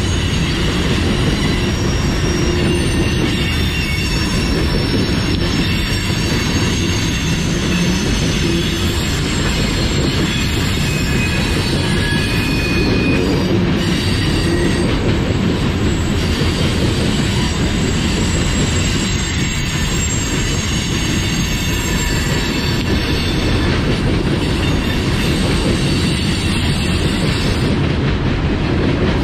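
Loaded coal hopper cars rolling slowly past on the rails: a steady rumble of steel wheels on track with a high-pitched squeal from the wheels.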